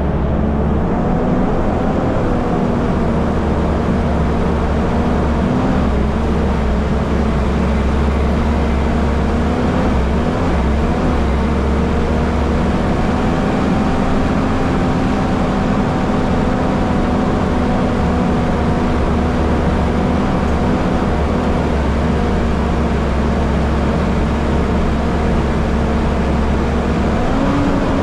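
Mitsubishi Challenger four-wheel drive's engine running at a steady pitch as it drives up a dirt trail, over a low rumble of tyres and road noise; the pitch rises slightly near the end.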